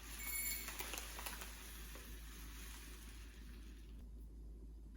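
Cumin seeds being poured into a small stainless steel spice container: a steady pattering hiss with a few clicks near the start, stopping about four seconds in.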